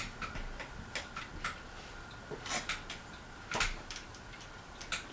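Hampton Bay Courtney ceiling fan coasting down after being switched off, giving irregular light clicks and ticks over a faint steady high tone.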